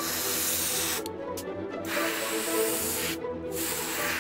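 Gravity-feed airbrush spraying paint in three hissing bursts, with short breaks between them as the trigger is released, over background music.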